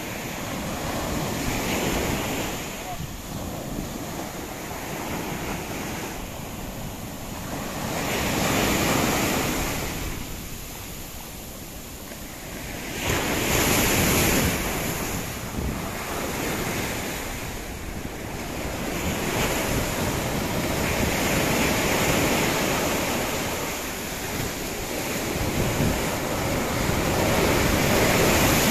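High storm-driven surf breaking and washing up the sandy beach, the rush of water swelling loud every five to seven seconds as each wave comes in and ebbing between.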